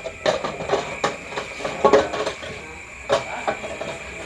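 Caramel popcorn being tipped out of a tilted black non-stick cooking pot into a glass display case. The popcorn rattles out, and the pot clatters and knocks irregularly against the machine.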